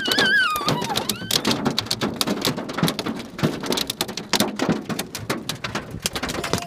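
Dime- to quarter-size hailstones pelting a car's roof and windows, heard from inside the cabin: a dense, irregular clatter of sharp hits.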